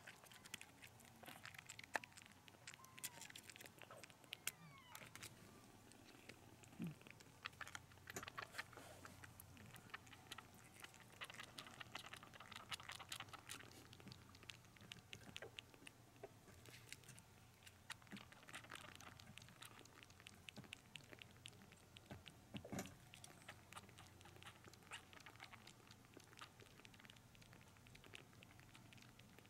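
Faint, quick, irregular wet clicking and smacking of a one-month-old kitten suckling milk from a nursing bottle's nipple.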